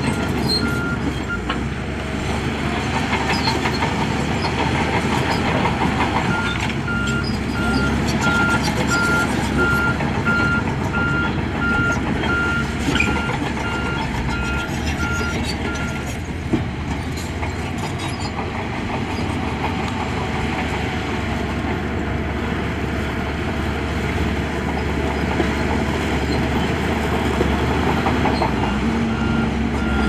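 Heavy construction machinery running with its diesel engines, while a reversing alarm beeps at a steady pitch in stretches: briefly at the start, from about six seconds to sixteen, and again near the end.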